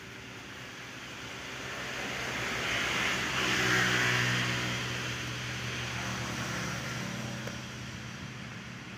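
A motor vehicle passing by, its engine hum and road noise swelling to a peak about four seconds in, then fading away.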